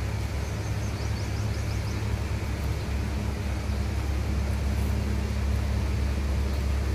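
A steady low mechanical hum with a constant noisy hiss over it, unchanging throughout.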